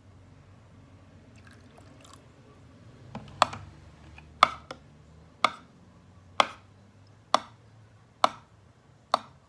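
A spoon stirring a thick glue-and-baking-soda slime mixture in a glass baking dish. From about three seconds in it knocks sharply against the dish about once a second, seven taps in all.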